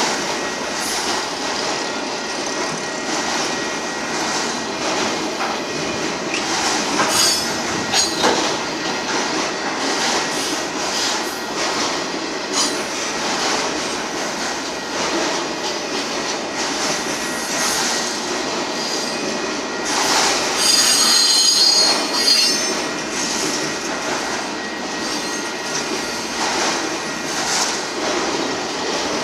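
Autorack freight cars of a Union Pacific manifest train rolling past steadily, wheels running on the rails with occasional knocks. A loud high-pitched wheel squeal rises about twenty seconds in and lasts a couple of seconds.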